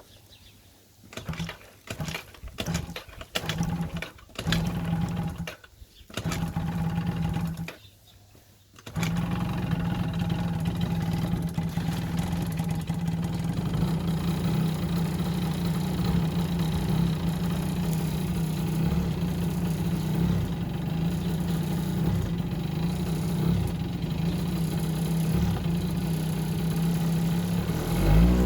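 Yamaha Jog scooter engine cranked in about five short bursts, then catching about nine seconds in and running steadily. It starts after failing to start after winter storage.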